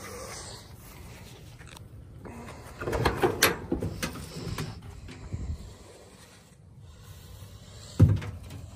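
Cab door of an old C10 pickup being opened: a cluster of latch and hinge clicks about three seconds in, then a few lighter knocks, and a single loud thump near the end.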